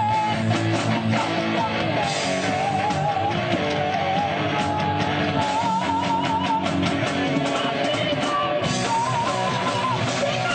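Live rock band playing: electric guitars, bass and drums, with a lead melody line that wavers in pitch through the passage.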